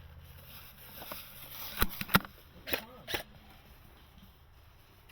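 Airsoft gun activity: four sharp snaps in two pairs, a close pair about two seconds in and a softer pair about a second later.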